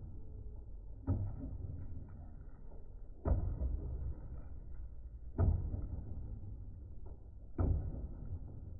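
Background music track with a deep bass hit and whoosh about every two seconds, four times, over a faint steady tone.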